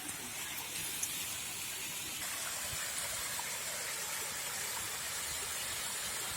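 Steady rushing of a small rain-fed waterfall, with a few faint ticks.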